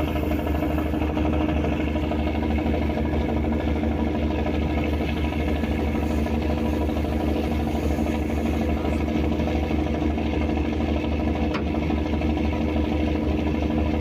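Fishing boat's engine running at a steady, even speed with a constant hum.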